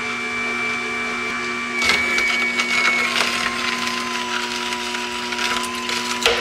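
Slow masticating juicer running with a steady motor hum; from about two seconds in its auger crunches cucumber pieces pushed down the chute, with crackling and sharp clicks over the hum.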